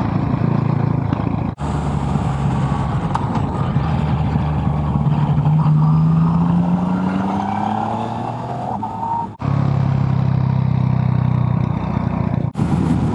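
Motorcycle engine running under way over wind rush, its pitch rising steadily as it accelerates in the middle, then running steady again; the sound breaks off briefly three times.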